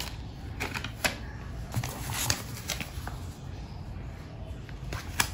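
Paper handling: scattered rustles and light clicks as a printed shipping label is stuck onto a kraft paper mailer and the mailer is picked up off the table.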